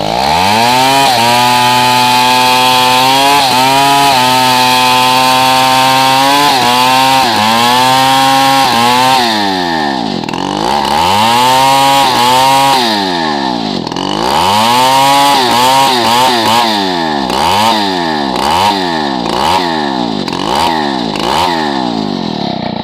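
Stihl 070 two-stroke chainsaw engine revved up to full throttle and held there for about nine seconds, its pitch dipping briefly now and then. It then drops back and climbs again twice, and in the last several seconds is blipped in quick repeated revs, about two a second near the end.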